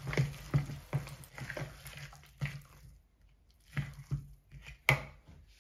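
A spoon stirring and pressing a thick, wet batter of shredded zucchini and flour in a plastic mixing bowl. It makes irregular squelching, crunchy strokes, about two or three a second, with a short pause about three seconds in and one sharper stroke near the end.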